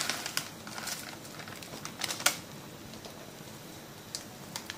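Crinkling of a foil instant-noodle packet being handled, with a few sharp clicks and taps, over a faint steady hiss.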